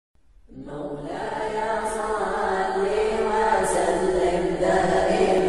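Intro music of unaccompanied vocal chanting, the voices held on long tones, fading in over the first second.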